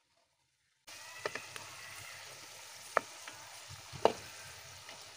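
Potato fries sizzling in hot oil in a metal karahi, starting abruptly about a second in. A spatula stirs them and knocks sharply against the pan a few times, loudest around three and four seconds in.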